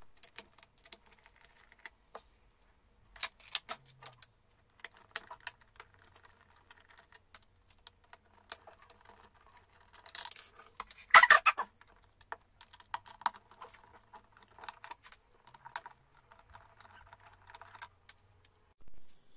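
Small clicks and scrapes of a small Torx screwdriver turning screws out of the plastic back housing of a Dolce Gusto coffee machine, with the loose screws and plastic case being handled; a louder clatter comes about eleven seconds in.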